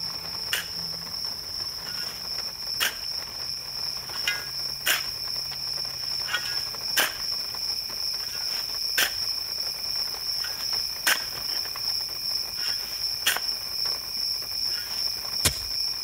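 Steady insect chorus, a high continuous drone, with a sharp click about every two seconds.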